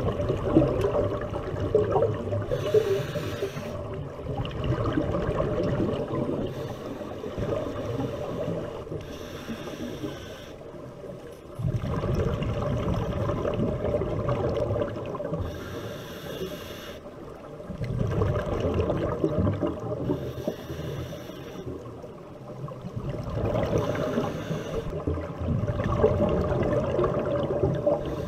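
Scuba diver breathing through a regulator underwater. A short hiss comes with each inhalation every four to six seconds, alternating with the low bubbling rumble of exhaled air.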